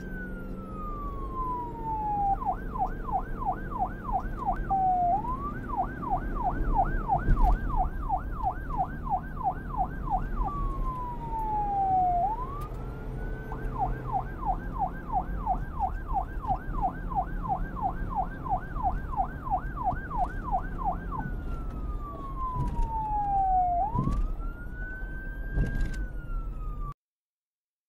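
Electronic police siren alternating a slow falling wail with long runs of a fast yelp, about four sweeps a second, before cutting off suddenly near the end.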